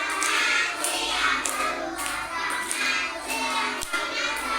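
A group of young children singing a song together, with hand clapping keeping a steady beat about twice a second.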